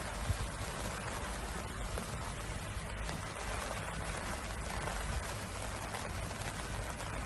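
Steady rush of storm water from a tropical storm, an even hiss with no distinct events.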